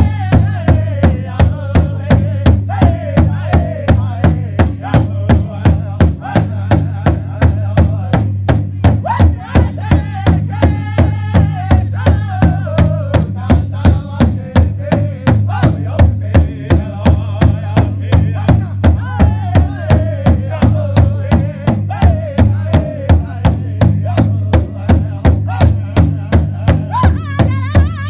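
Large hide-headed powwow drum beaten by a drum group in a steady, even beat, with voices singing a powwow song over it.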